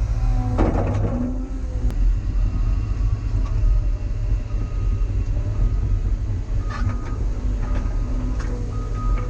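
Cat excavator's diesel engine running steadily under load, with hydraulic whine coming and going as it digs. A few brief metallic clanks come from the working excavator, about half a second in and again near the end.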